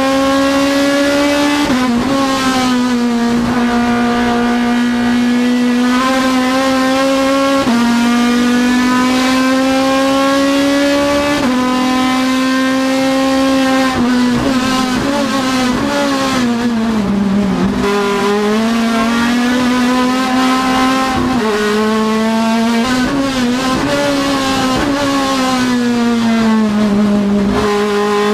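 Turismo Nacional Clase 3 race car's engine at full throttle, heard from inside the cockpit: the pitch climbs steadily through each gear and drops abruptly at each upshift, about two, eight and eleven seconds in. In the middle stretch the pitch falls and wavers as the engine comes off the throttle and is downshifted, then climbs again.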